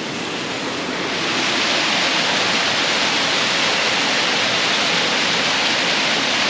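Waterfall rushing: a steady, loud roar of falling water that grows louder about a second in, then holds.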